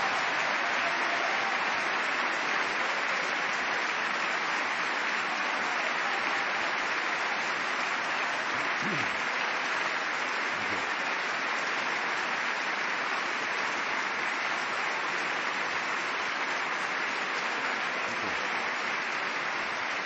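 A large crowd applauding, long and steady, many hands clapping without a break.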